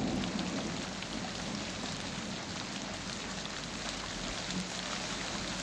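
Steady rain falling, an even patter.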